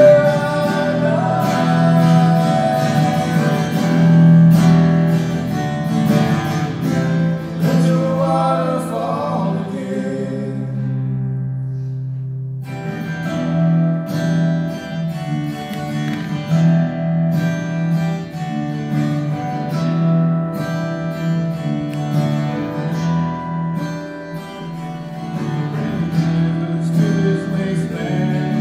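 Live worship band playing: a man sings over strummed acoustic guitar for about the first ten seconds, then the voice drops out and the guitars carry on in an instrumental passage.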